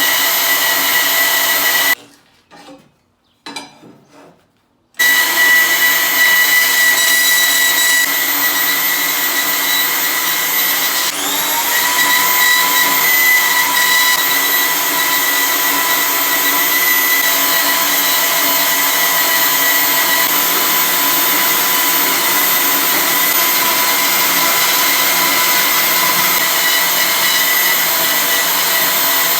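A high-speed electric power tool, likely a grinder working the 1084 steel stock, running with a steady whine. It stops about two seconds in, with a few small knocks in the pause, then starts again about five seconds in and runs steadily, its pitch rising slightly around eleven seconds.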